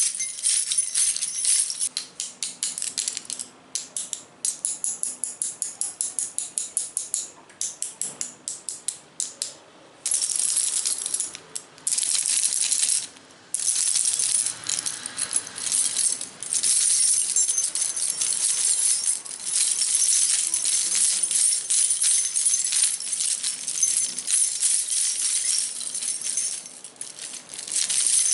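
ASMR trigger sounds: rapid tapping and rattling of small objects, shaker-like, in runs of fast clicks and longer stretches of continuous rattle with short pauses between.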